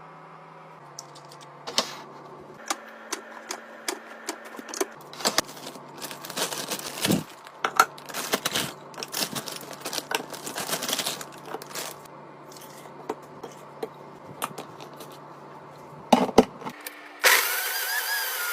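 Clicking, knocking and rattling of household containers and lids being handled, over faint steady tones. Near the end, a small electric motor starts with a loud steady whine.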